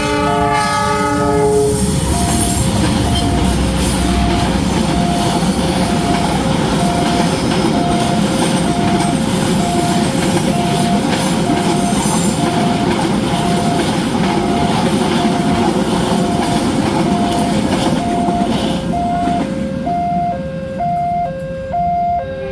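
A train horn sounds for the first couple of seconds. Then a train rolls through the level crossing with a steady rumble and wheel noise. Over it all the crossing alarm beeps in a fast two-tone alternation, and it is left sounding alone after the train clears near the end.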